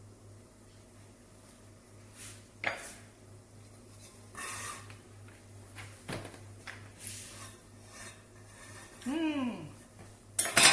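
Kitchen clatter: scattered light knocks and scrapes of utensils and dishes on a counter, with a sharper knock a few times. A brief vocal sound comes about a second before the end.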